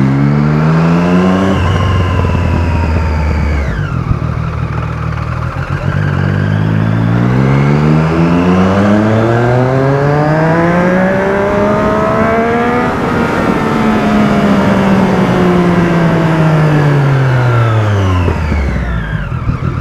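Motorcycle engine under way: a short rev at the start, then one long steady climb in pitch for about seven seconds as the bike accelerates, easing back down over the following six seconds as it slows.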